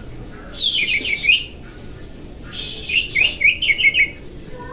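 Oriental magpie-robin (kacer) singing in two quick phrases of short, sharp repeated notes, the first about half a second in and a longer one near the middle.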